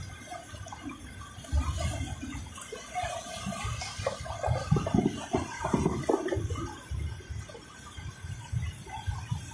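Rushing, churning floodwater of a swollen mountain stream, a continuous noisy wash with a heavy low rumble that swells and fades.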